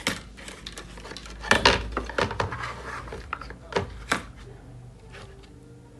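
A series of sharp clicks and knocks from parts and tools being handled on a workbench during an induction cooker repair, loudest about one and a half seconds in and again around four seconds in, then dying down.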